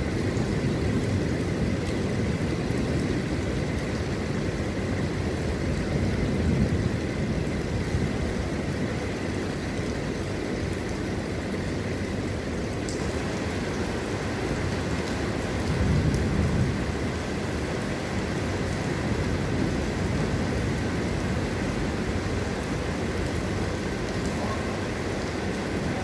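Heavy rain falling steadily, with a deep rumbling noise that swells twice, about six and sixteen seconds in.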